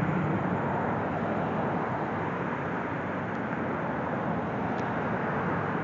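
A car's steady engine and road noise, an even rumble without distinct events.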